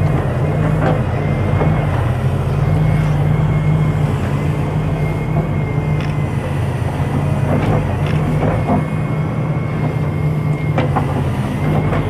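Volvo wheeled excavator working: its diesel engine runs steadily under load with a thin steady high whine over it, and the bucket digging into the soil gives a few short knocks and clanks.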